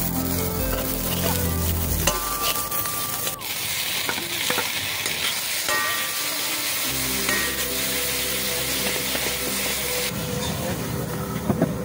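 Garlic, red onion and tomato sizzling as they fry in a hot carbon-steel wok, stirred with a metal ladle. The sound shifts abruptly several times.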